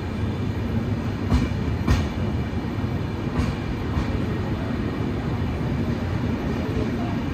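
Rani Chennamma Express passenger train running at speed: a steady low rumble, with two pairs of sharp wheel clacks over rail joints in the first four seconds.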